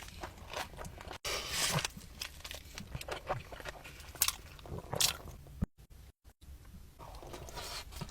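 A mouthful of burrito being bitten and chewed close to the microphone, with irregular crunches and a couple of brief dropouts to silence about two-thirds of the way through.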